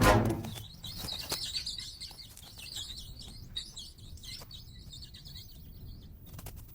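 Many short, high chirping calls in quick succession, from about half a second in until they fade near the end. The last of an orchestral brass chord dies away at the very start.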